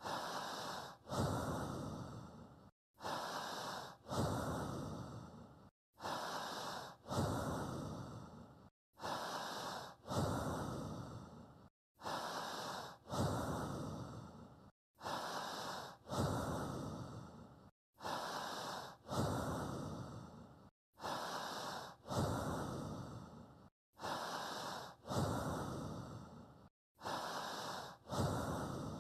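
Recorded human breathing on a loop, one breath in and out about every three seconds, evenly paced, with a clean cut to silence between breaths. It is a steady breathing guide for the listener to breathe in time with.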